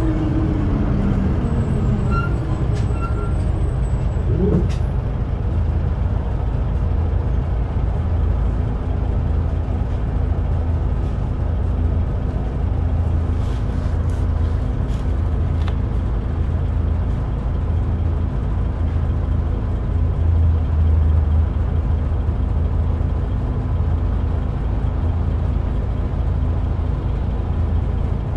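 Karosa B 741 natural-gas articulated bus idling at a standstill with a steady, even engine hum. In the first few seconds a whine falls and then rises again, and about halfway through there are a few brief air hisses.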